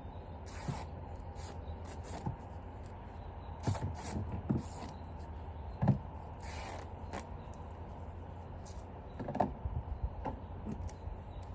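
Scattered knocks, clicks and brief rustling from handling plastic plumbing parts and tools.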